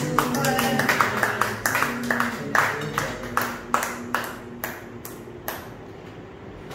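Several people clapping their hands in steady time, about four claps a second, dying away about five and a half seconds in.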